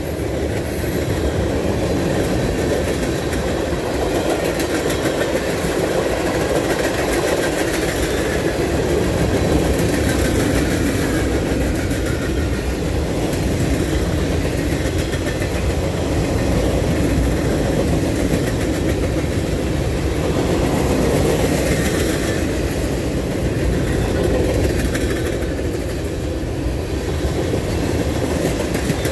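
Freight cars of a Norfolk Southern mixed freight train rolling past: the steady, continuous noise of steel wheels running on the rails.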